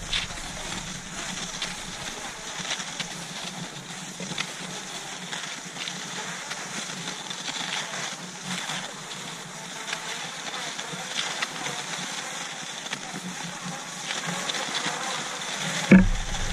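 Cross-country skis swishing steadily along a groomed snow track, with occasional faint clicks. A single sharp knock comes just before the end.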